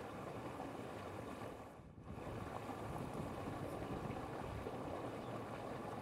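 Steady low rumbling background noise that drops away briefly about two seconds in.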